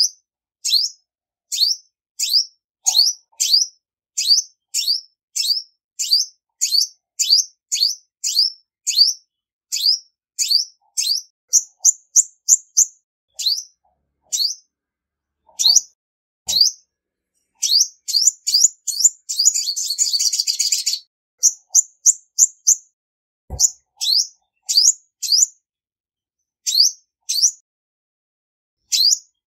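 Female olive-backed sunbird calling: a long series of short, sharp, high chips, about two a second, with faster runs and a brief scratchy rattle in the middle and a few short pauses.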